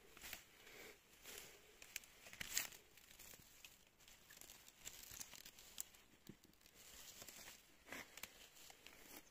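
Faint rustling with scattered small clicks and crackles, the loudest about two and a half seconds in.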